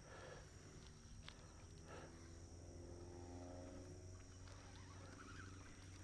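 Near silence: faint outdoor background with a steady low hum, and a faint pitched sound sliding slowly down in pitch through the middle.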